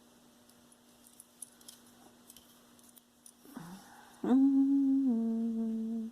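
A person hums two held notes, the second a little lower, after a few seconds of small clicks from jewelry being handled.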